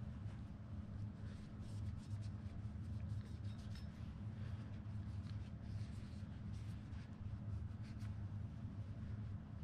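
Cloth rag rubbing and wiping over a spinning fishing reel, with faint scratchy strokes and small handling clicks, over a steady low hum.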